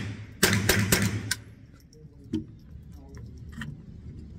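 Three quick shots from a Remington Nylon 77 semi-automatic .22 LR rifle, about half a second in, then a few faint metallic clicks as the rifle is handled.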